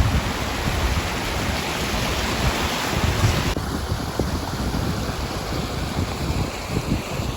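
Rushing river water, a steady hiss, with wind buffeting the microphone in low gusts. About three and a half seconds in, the higher part of the water sound drops off abruptly.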